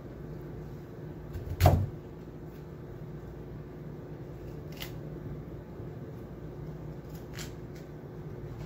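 Knife cutting florets from a head of raw cauliflower: one loud knock about a second and a half in, then two fainter clicks, over a steady low hum.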